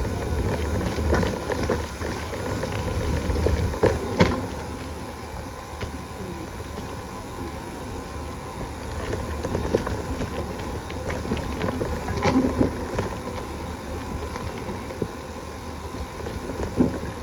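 Bicycle ridden over a rough trail: a steady low rumble with scattered rattles and knocks, one louder knock about four seconds in.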